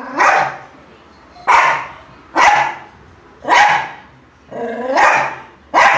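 Small dog barking, six short sharp barks about a second apart.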